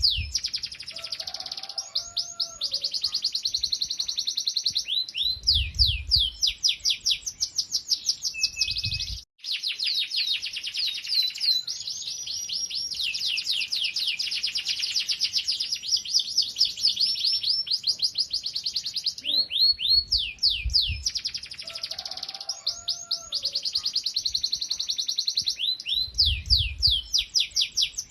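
Domestic canary singing a long song of fast, repeated rising trills and rolls, with a momentary break about nine seconds in. A low rumble shows under the song twice.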